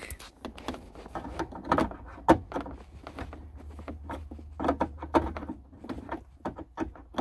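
Irregular clicks and knocks of a plastic OBD-II scanner plug being pushed and worked into the diagnostic port under the dashboard.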